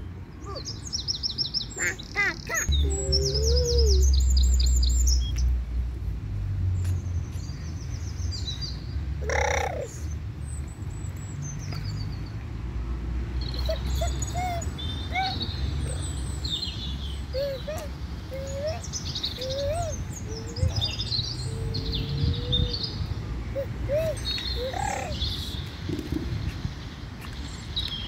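Birds chirping, with quick high trills near the start and short scattered chirps throughout. A low rumble runs for a few seconds early on.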